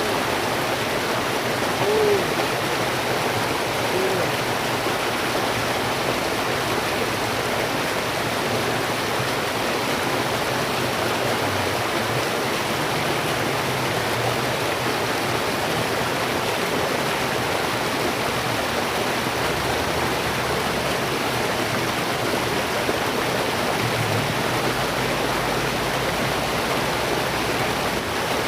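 Steady rush of flowing water. Two brief pitched calls stand out about two and four seconds in.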